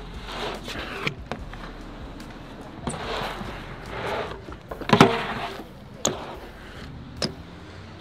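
BMX bike riding a concrete bowl: the tyres hiss on the concrete in swells as it carves the transitions, broken by sharp knocks and clacks from the bike, the loudest about five seconds in.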